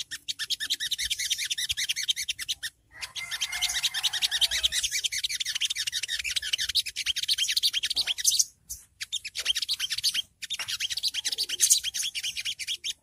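Olive-backed sunbird (sogok ontong) giving its rapid, high-pitched "ngriwik" chattering trill: long runs of quick repeated notes, broken by brief pauses three times.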